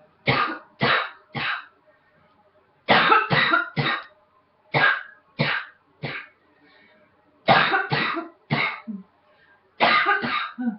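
A woman coughing in five fits of about three sharp coughs each, with short pauses between the fits.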